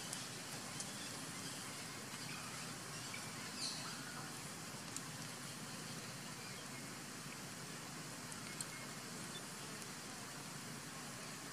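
Steady low background hiss, with a few faint short clicks.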